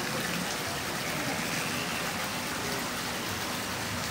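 Steady rush of water pouring from a pipe into a pool.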